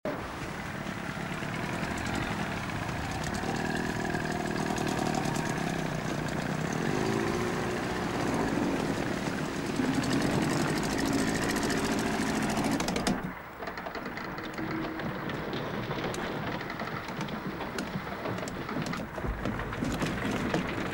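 Small outboard motor running on a rowing boat, its pitch rising and falling as it is revved. About 13 s in it cuts off abruptly to a quieter steady background.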